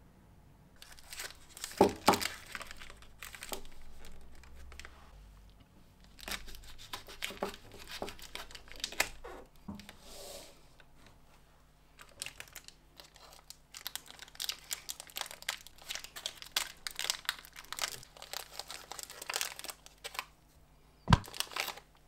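Candy-bar wrapper crinkling and tearing in bursts as it is handled and opened. Near the end comes a sharp knock as a chocolate square is set down on a glass kitchen scale.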